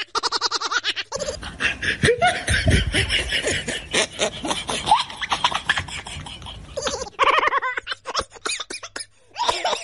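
People laughing in rapid bursts.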